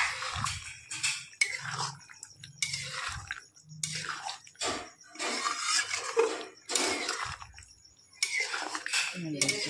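Thick chicken curry bubbling in a large aluminium kadai on the heat, with irregular splutters and pops.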